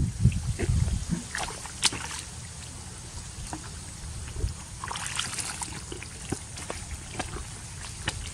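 Water sloshing and splashing, with scattered small clicks and knocks and a longer splash about five seconds in.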